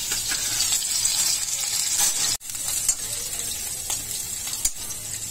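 Chopped green chillies and garlic sizzling in hot mustard oil in a kadhai for a tadka, stirred with a metal spoon, with a click of the spoon against the pan near the end. The sizzle cuts out for a moment about two and a half seconds in.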